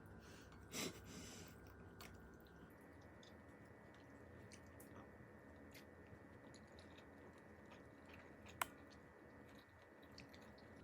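Quiet eating sounds: faint chewing and small clicks, with a short louder sound about a second in and one sharp click near the end, over near silence.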